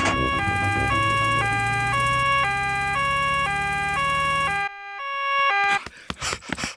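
Cartoon two-tone siren alternating high and low notes, about one high-low cycle a second, over a car engine's hum as the doctor's car arrives. The engine stops suddenly about two-thirds of the way in, and the siren ends a second later.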